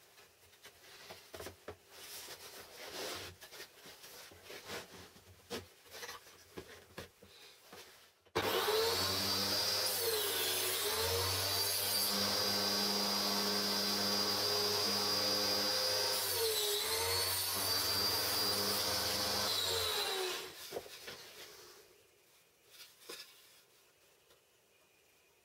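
Wood knocking and rubbing as a board and wooden jig are handled against the saw fence. About eight seconds in, a table saw switches on and runs with a steady high whine; its pitch sags twice as the blade cuts through the board held upright in the jig. Near the end it is switched off and winds down.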